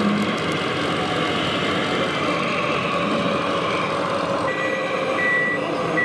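Engine sound of 1:16 RC model construction machines running steadily over the hall's background noise. From about four and a half seconds in, a reversing beeper sounds in evenly spaced beeps, a little more than one a second.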